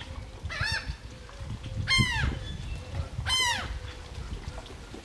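A bird calling three times, about a second and a half apart, each call rising and then falling in pitch.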